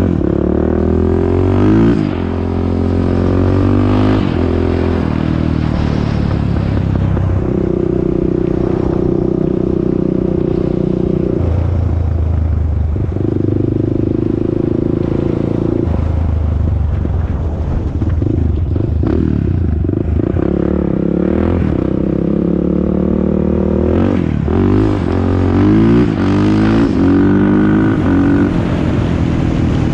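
A 2001 Honda TRX400EX ATV's single-cylinder four-stroke engine running while being ridden. Its pitch rises and falls as the throttle is worked, with two stretches held steady near the middle.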